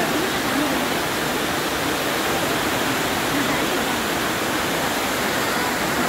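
Courtallam main waterfall: a large multi-tiered waterfall pouring down a rock face, a steady, unbroken rush of falling water.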